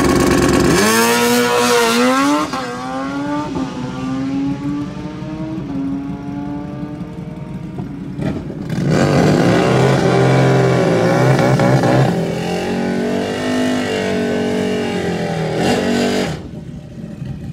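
Drag-racing motorcycle engines. One bike accelerates hard, its pitch climbing with a few dips at the gear changes and fading as it runs off down the strip. About halfway through another bike revs high for a burnout, and its engine cuts off suddenly shortly before the end.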